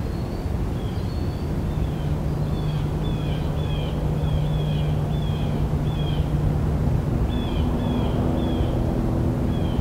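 A steady, low engine drone, its held tones shifting slightly about seven seconds in, with a small bird's short, falling chirps repeating about twice a second over it.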